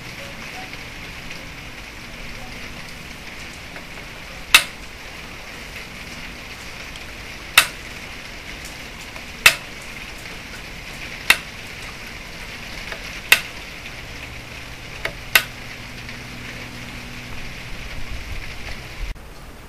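A short starter tapping a small brass rod held against the edge of a flintlock's gunflint: about seven sharp taps, one every two seconds or so, over a steady background hiss. Each tap knaps small flakes off the worn, rounded edge of the flint to make it straight and sharp again for hot sparks.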